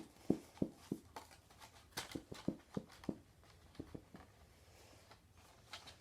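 Light, dull knocks and taps of a cardboard box and its packaging being handled and packed, about a dozen irregular knocks, most of them in the first half.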